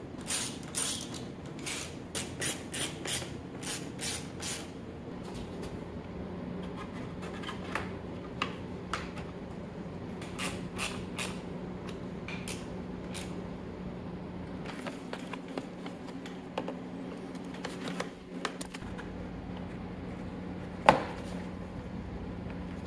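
Clicking and light clatter of a hand tool and motorcycle parts being handled during reassembly, with a run of quick clicks in the first few seconds and one sharp click about 21 seconds in. A faint steady low hum runs underneath from about five seconds in.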